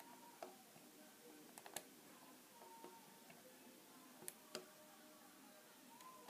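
Faint, scattered clicks of a hook pick and tension wrench working the pin stack of a brass padlock: single-pin picking, probing and setting binding pins. About six small clicks, the sharpest near the middle.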